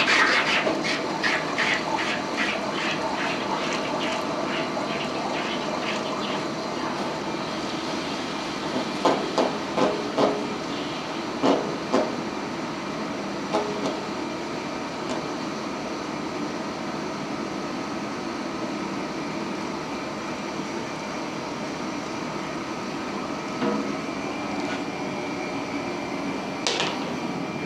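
Red-hot 1045 steel ball being quenched in a water tank: a loud, rapid boiling crackle that dies away over the first several seconds as the steel cools, over a steady background rush. A few metal clanks follow midway and near the end.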